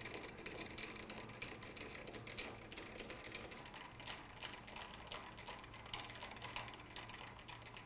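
A lathe's cross-slide handwheel being cranked by hand as the cross slide travels to its front position. The feed screw and slide give a faint, uneven run of small mechanical clicks and ticks.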